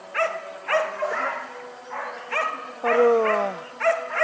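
Hunting dog barking in a string of short, high, yelping barks, with one drawn-out call that falls in pitch about three seconds in.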